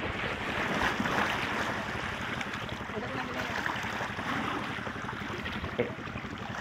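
Steady wash of wind and lapping sea water, with a low rumble underneath.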